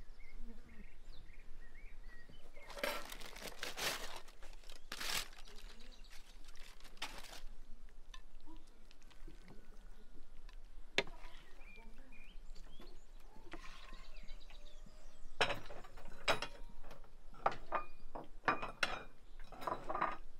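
Tableware being handled while food is served: a few longer scrapes a few seconds in, then a run of clinks and clicks of ceramic plates and cutlery in the last few seconds.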